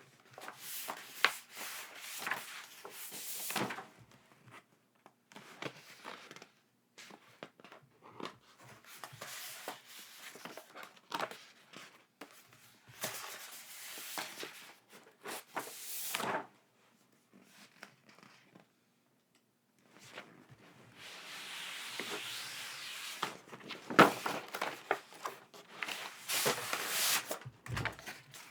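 Packaging and merchandise being handled: bursts of rustling, rubbing and tearing with sharp clicks and light knocks, broken by short pauses.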